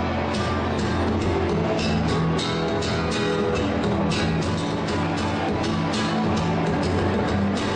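Steel-string acoustic guitar being played, with a quick run of crisp plucked notes over sustained low notes.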